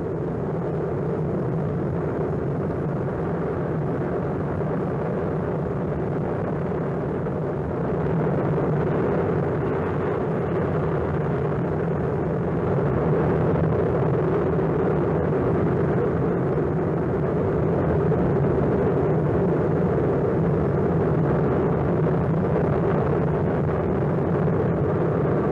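Kilauea lava fountain erupting: a steady, deep rumbling roar that grows a little louder about a third of the way through and again about halfway.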